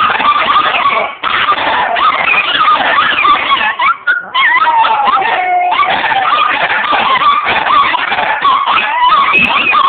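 Several Chihuahuas howling together in overlapping high, wavering howls. There is a short break about a second in, and one long falling howl in the middle.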